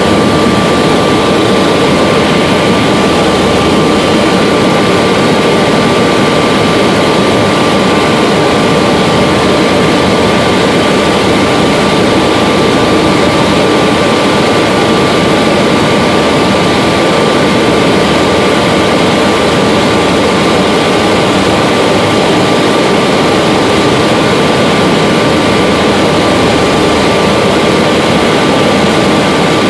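Helicopter engine and rotor noise heard from inside the cabin in flight: a loud, steady noise with a constant whine running through it.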